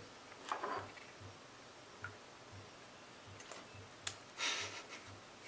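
A raw egg being cracked by hand: a short crunch of shell about half a second in, then just after four seconds a sharp crack of the shell followed by a brief wet squelch as the egg slides out into a bowl of flour, a sound called "the weirdest noise".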